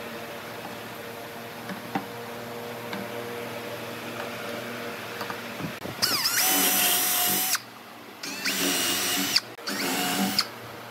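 Hand-held power drill with a countersink bit boring into pine in three short bursts in the second half, its motor whining up in pitch at the start of the first. Before that there is only a low steady hum with a few faint ticks.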